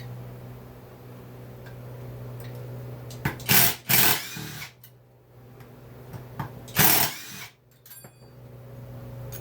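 Small power driver run in three short whirring bursts, backing out fasteners on a chainsaw being dismantled. A steady low hum sits underneath.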